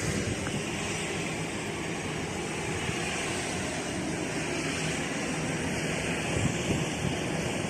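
Aircraft engine running with a steady rushing noise that holds level, with no rise or fall in pitch.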